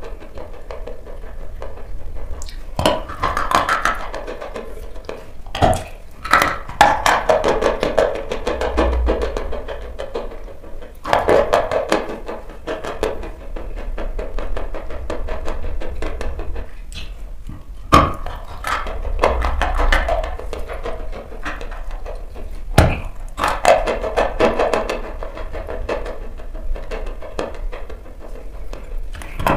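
Sharp crunching bites into a dry block of chalk, with loose, crackling chewing between them; about half a dozen bites stand out as single loud cracks. Music plays underneath.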